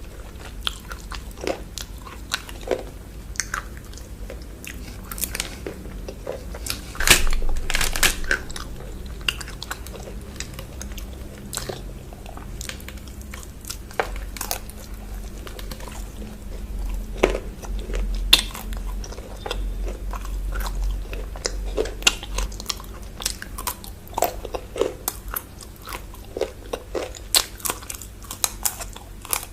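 Close-miked biting, crunching and chewing of chocolate bars, ASMR-style, with sharp crisp crunches scattered throughout and a loud cluster of bites about seven seconds in.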